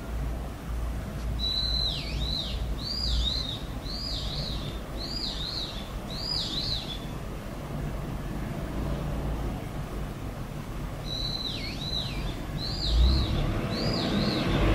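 Unidentified bird calling: a short high whistle that drops into a swooping note, then a run of looping two-part notes about one a second; the phrase starts again about ten seconds in. A low hum runs underneath, and road-traffic noise rises near the end.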